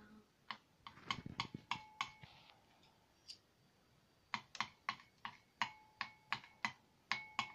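Metal spoons clinking and tapping against a glass bowl while blue colorant is stirred into white PVA glue. Irregular sharp taps, some with a short glassy ring, a few at first, then a steady run of about three a second from a little past halfway.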